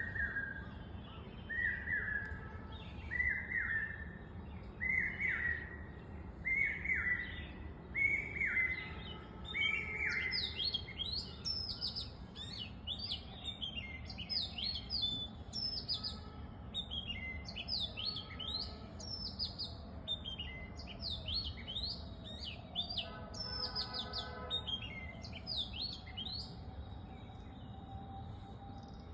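Birds calling: a lower call repeated about every one and a half seconds for the first ten seconds, then many quick, high, falling chirps from several birds.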